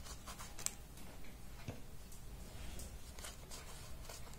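Faint handling noises of a leather sandal being turned in the hands: scattered small clicks and soft rubbing, with one sharper click about half a second in.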